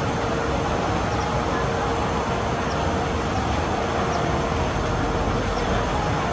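Steady rushing noise of water churning through the water slide's splash channel.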